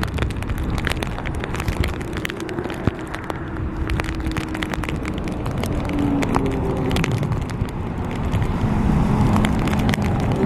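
Hurricane-force wind buffeting the microphone: a loud, steady rumble full of crackling clicks, with a faint wavering whistle.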